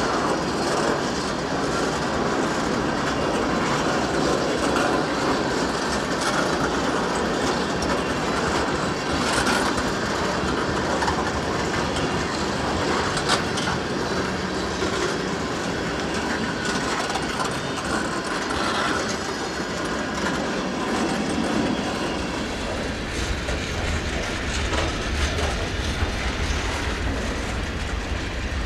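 Freight train rolling past: a steady rumble of wheels on the rails with occasional clicks from the rail joints.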